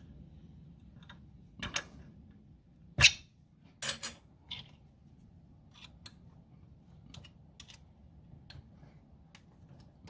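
Allen key clicking and knocking against the bolts and steel bracket of a lathe DRO scale as the bolts are snugged up: a few sharp metallic clicks, the loudest about three seconds in, then only light scattered ticks.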